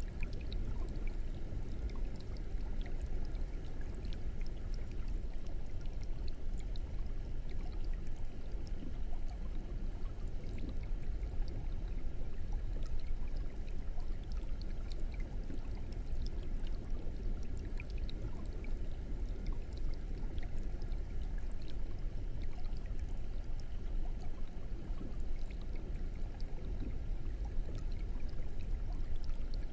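Aquarium air bubbler running: a steady stream of bubbles rising and breaking at the water surface, a continuous trickling with many tiny pops.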